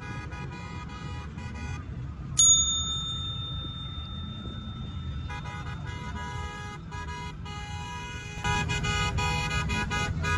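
Vehicle horns honking in repeated blasts, louder near the end. About two seconds in there is a single sharp strike that rings on for a few seconds.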